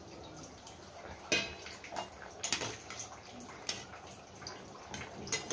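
Water bubbling at the boil in a steel pot, with a steel skimmer clinking against the pot several times as parboiled potato sticks are scooped out.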